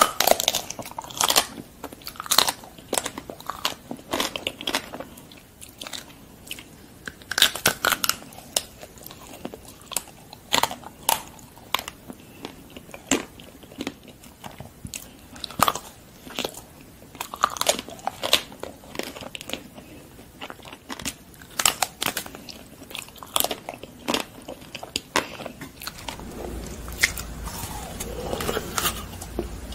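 Close-miked biting into ice cream bars with hard chocolate coatings, the shells cracking in sharp crunches every second or so, with soft chewing in between. Near the end a low hum sets in under the eating sounds.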